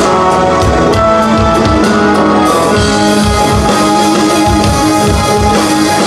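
Rock band playing live: electric guitars, bass, keyboards and drum kit, with a steady kick-drum beat under held and moving melodic lines.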